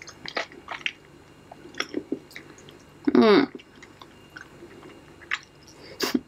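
A person biting and chewing spicy Sichuan-pepper chicken feet: scattered wet smacks and small crackling clicks of skin and cartilage. One short vocal sound from the eater about three seconds in.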